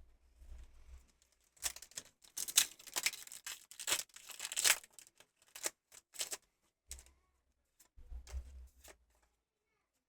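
Foil booster pack wrapper crinkling and tearing open in a quick run of sharp rustling rips over a few seconds, followed by a few soft handling bumps near the end.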